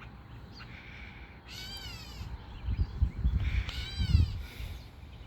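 A bird calls twice, about two seconds apart: each call is a drawn-out, rich call that rises briefly and then falls in pitch. A low rumble on the microphone comes in the middle.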